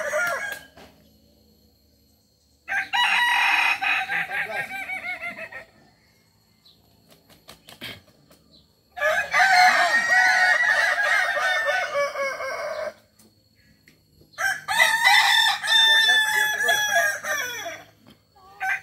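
Several Kokok Balenggek roosters crowing: a crow just ending, then three long crows, each lasting three to four seconds and broken into many short repeated steps, with quiet gaps between them. The stepped crow with many syllables is the trait of this West Sumatran breed.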